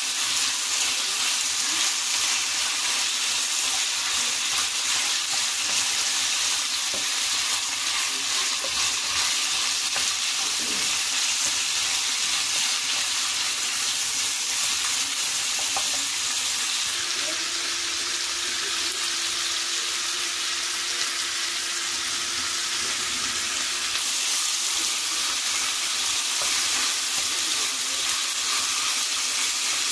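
Sliced hot dogs and bologna sizzling steadily in a frying pan as they are stirred with a wooden spoon.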